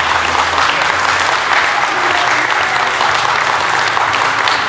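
Applause: many hands clapping in a dense, steady patter, with the tail of background music fading under it in the first second or so.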